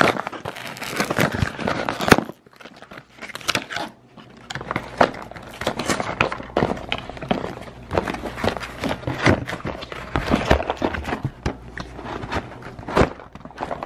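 A Priority Mail paper and cardboard package being handled and torn open by hand: irregular crinkling and rustling with many sharp crackles and taps.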